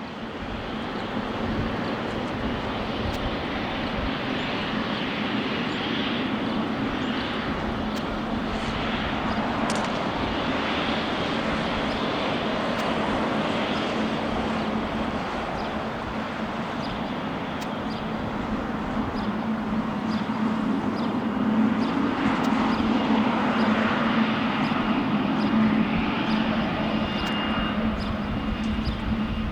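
Jet airliner engines: a steady noise that grows louder in the second half.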